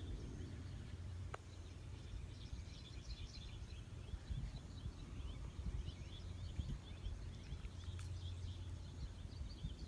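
Faint birds chirping, many short calls, over a low steady rumble of outdoor background noise.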